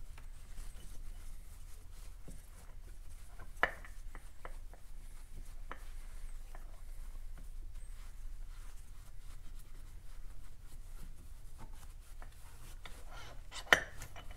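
Cloth towel wiping and rubbing the scooter's variator pulley face, cleaning off grease so the belt won't slip, with scattered small taps and two sharper clicks, one about four seconds in and a louder one near the end.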